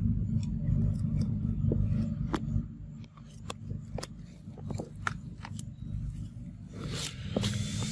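Macaque chewing and biting fruit, a string of sharp irregular clicks and smacks over a low steady rumble. A hissing rush swells in near the end.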